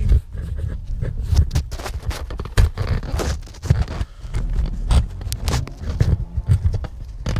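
Camera handling noise while the camera is repositioned: irregular scraping, rubbing and knocks directly on the microphone.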